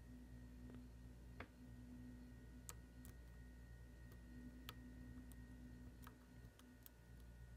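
Near silence with a handful of faint, irregular clicks of a dimple pick working the pins inside a VSR dimple cam lock, over a faint steady hum.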